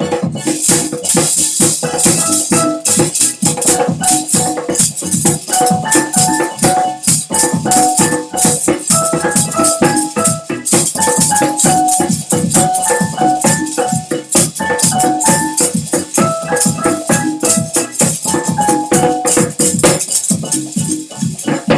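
Lively music: hand drumming on a djembe and maraca shaking in a quick steady rhythm, over a simple melody that steps up and down in short notes.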